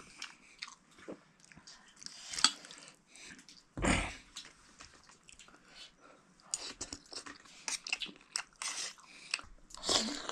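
Close-up chewing and crunching of food, made up of scattered short crackles and clicks, with one dull thump about four seconds in.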